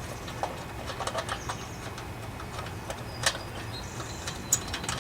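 Scattered light clicks and taps of a wrench and metal parts as the float bowl bolt is undone and the float bowl is taken off a lawnmower carburetor, with two sharper clicks about three and four and a half seconds in.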